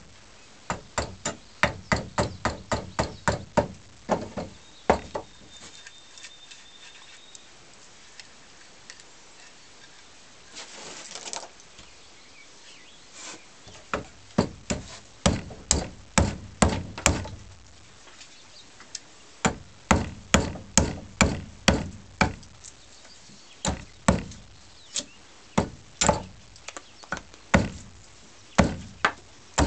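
Side axe hewing a wooden scythe-snath grip on a wooden sawhorse: a fast run of sharp chopping knocks, two to three a second. The chopping stops for several seconds in the middle, then resumes in another run of strokes.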